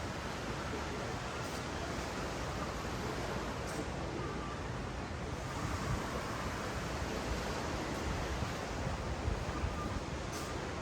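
Steady wash of small ocean waves on a sandy beach, with a low rumble of wind on the microphone.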